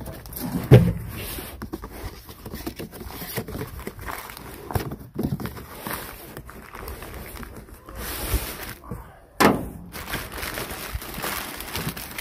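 Cardboard box being opened and crumpled brown packing paper rustling as a boxed suspension control arm is pulled out, with a couple of knocks from handling.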